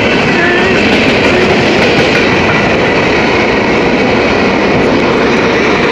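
Canadian Pacific freight train of covered hopper cars rolling past, a loud, steady rumble of wheels on rail.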